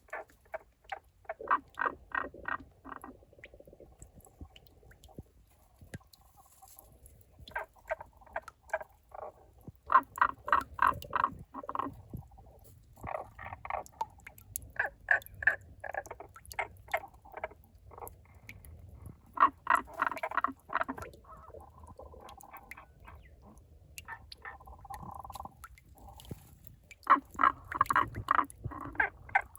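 Frog calling from a spring in a rock crevice: about seven runs of rapid, rolling pulsed croaks, each a second or two long, some louder than others, spaced irregularly.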